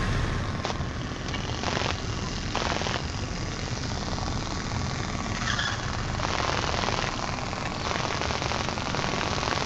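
Noise in a Cessna light aircraft's cabin: a steady rushing noise over a low engine drone, broken by irregular short rattles.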